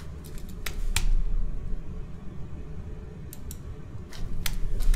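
Scattered sharp clicks of a computer mouse and keyboard. A few come about a second in and several more toward the end, over a low rumble.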